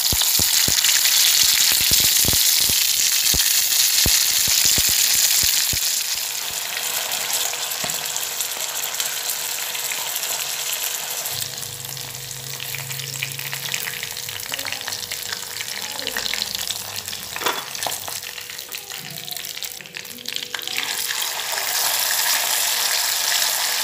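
Marinated chicken pieces sizzling as they shallow-fry in hot oil in a pan, with sharp crackling pops over the first few seconds while a steel spoon stirs and turns them. The sizzle eases a little after about six seconds but keeps going.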